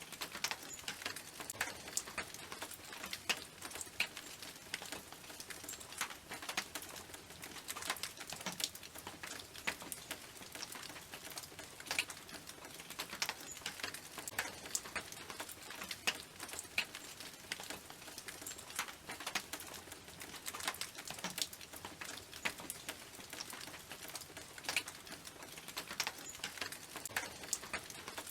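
Rain falling on a tin roof: irregular sharp ticks of individual drops striking the metal over a faint steady hiss.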